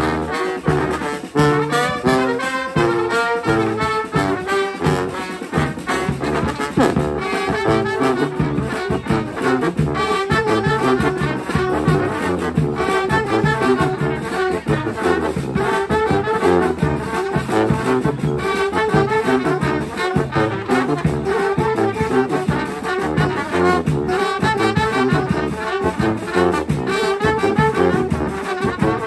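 Street brass band playing live: a brass tune over a steady beat, continuous throughout.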